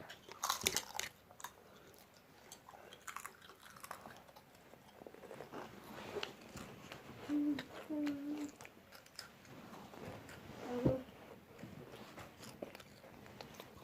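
Close-up chewing and biting of crisp sweet potato chips: scattered short crunches, most of them in the first second or two, with a few brief closed-mouth hums about halfway through.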